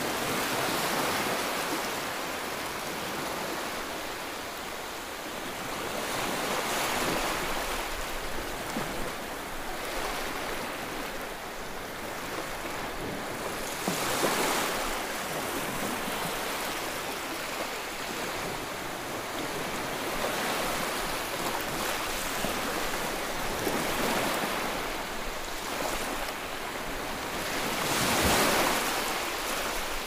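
Sea surf washing in steadily, rising and falling every several seconds, with the loudest surge near the end.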